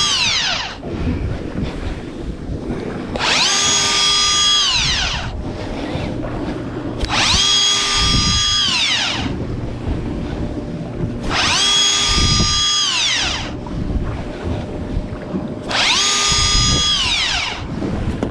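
Electric fishing reel's motor winding in line in repeated bursts about every four seconds: each spins up with a rising whine, holds steady, then winds down in pitch. The reel is hauling a heavy, still-fighting halibut up from around 200 feet.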